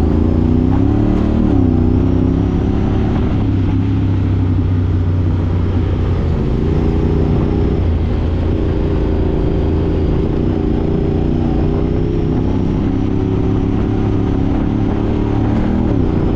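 Side-by-side UTV engine running at a fairly steady speed, its pitch wavering briefly about a second in and dropping near the end.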